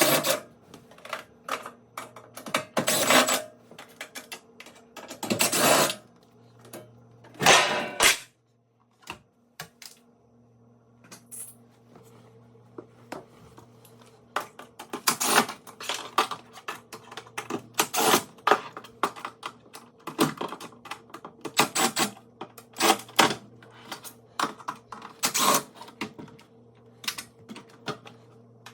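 Hand work on a dishwasher door: irregular clicks, clacks and short scrapes of tools and metal and plastic parts, over a faint steady hum.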